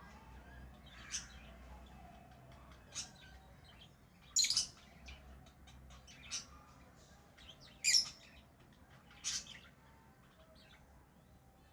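Pet lovebirds giving short, high-pitched chirps every second or two, the loudest about four and eight seconds in, with faint ticking between the calls.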